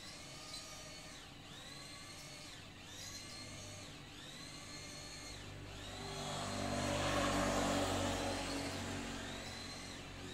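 A pitched whine that rises, holds and falls again about every second and a half. Over it a passing vehicle's engine swells up, is loudest past the middle, and fades toward the end.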